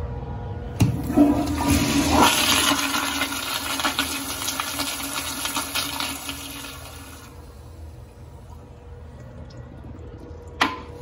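A toilet flushing. It starts with a sharp click about a second in, rushes loudly for about six seconds, then falls to a quieter level. A short sharp knock comes near the end.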